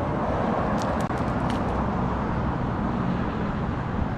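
Steady low rumbling outdoor noise, with a few short, sharp high ticks about a second in.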